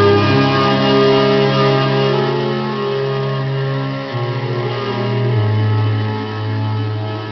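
Music from a vinyl record playing on a Magnavox portable record player: held organ chords over long bass notes that change pitch a few times, with a fluttering bass note about four seconds in.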